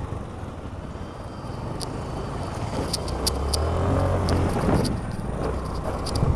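Riding noise from a scooter on a rough road: a steady low engine and wind rumble, with a few sharp clicks and rattles about two to three and a half seconds in. Other motorcycles pass the other way.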